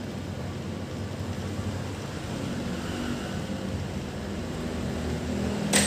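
Steady low background rumble and hiss, with one sharp click near the end as a test-lead probe is handled and fitted on a pen multimeter.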